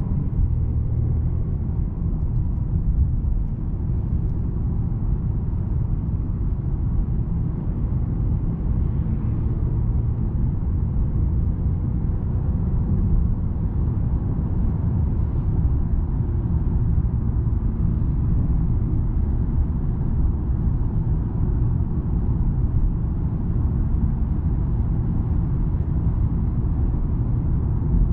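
Mercedes-Benz E350 driving: a steady low rumble of road and engine noise.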